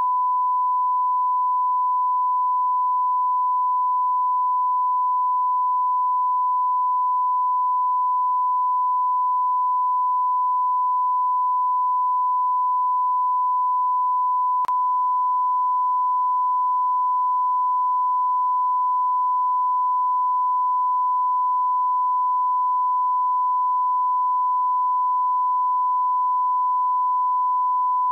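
Steady 1 kHz sine-wave test tone, one unbroken pitch at constant level: the line-up reference tone that goes with colour bars for setting audio levels.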